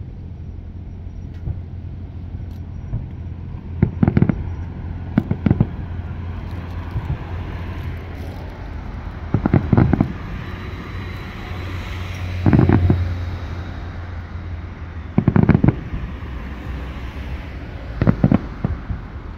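Aerial firework shells bursting at a distance, about six booms a few seconds apart, some in quick doubles, over a steady low rumble.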